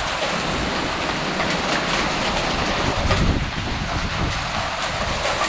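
Heavy rain driven by strong gusting wind, around 60 mph by the onlooker's estimate, a steady loud roar with fine ticking of drops and wind rumbling on the microphone.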